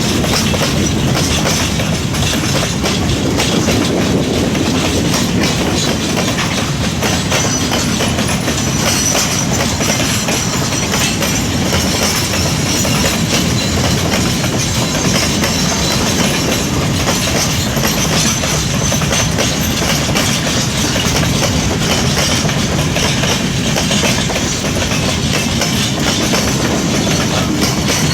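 Long freight train of grain hopper wagons rolling past at steady speed, wheels clacking over the rail joints in a continuous rattle.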